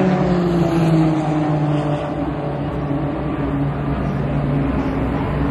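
Racing car engine at speed on the track. Its note falls in pitch over the first two seconds as the car goes by, then holds steady.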